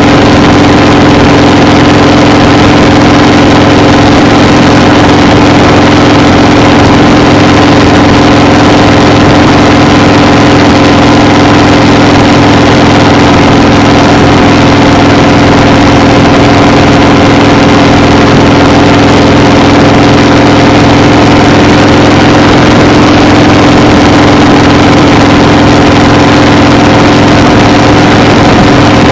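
A loud, steady engine drone with an unchanging hum, no breaks or changes.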